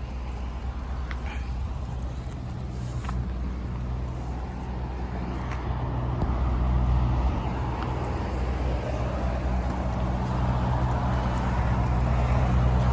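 A car running, with a steady low engine hum and road and tyre noise that builds over the second half.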